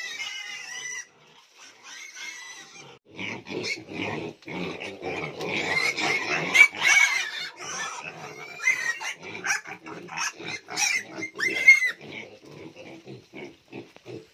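A group of young piglets squealing and grunting, growing loud and crowded from about three seconds in, with short quick grunts near the end; the excited clamour of hungry piglets as pellet feed is put out for them.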